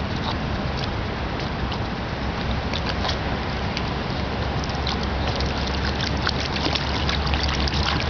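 Dogs wading through shallow lake water: an Australian shepherd and a toy fox terrier making small splashes and sloshes, which come thicker in the second half. Under them runs a steady low rumble.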